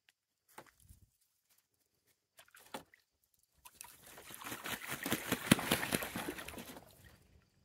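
Toulouse geese splashing in a shallow plastic wading pool: a few brief splashes, then about three seconds of continuous splashing and sloshing as a goose beats its wings in the water, loudest in the middle, before it dies away near the end.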